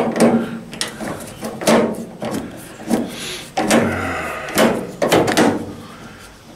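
A series of knocks and clatters, about half a dozen, from handling the sheet-metal cabinet of a Samsung electric dryer being taken apart for a heating element repair.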